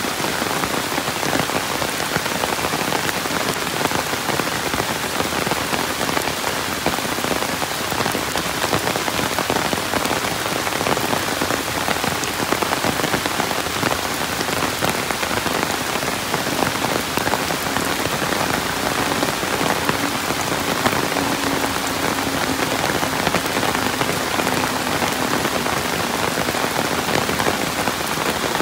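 Steady rain falling, an even hiss of drops that does not let up.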